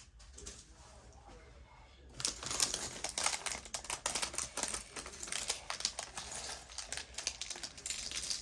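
Lego set packaging being handled: a rapid run of crinkles and small clicks, with plastic parts bags and cardboard rustling as the box is unpacked, starting about two seconds in.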